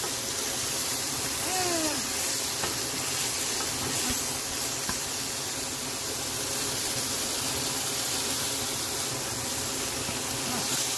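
Ground beef sizzling in a frying pan, a steady hiss.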